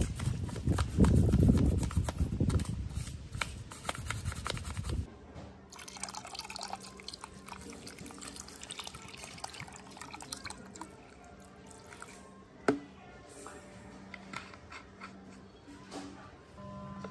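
Wet sponge scrubbing a soapy, knobbed plastic massage pad, with many small clicks and rubs, until about five seconds in. Then a thin stream of water runs and drips into a plastic tub of soaking belts, much quieter.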